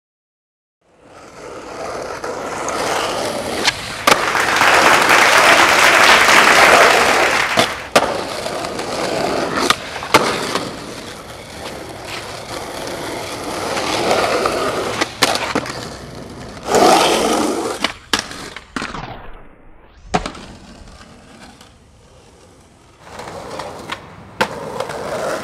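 Skateboard wheels rolling over rough concrete, the roll swelling and fading as the board speeds up and slows. Sharp cracks of tail pops and board landings break in over and over.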